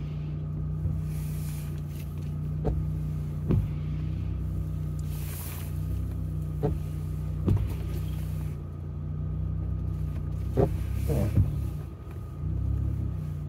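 Jeep Gladiator's engine running at low trail speed, heard from inside the cabin as a steady low hum. Pairs of short knocks come about every four seconds.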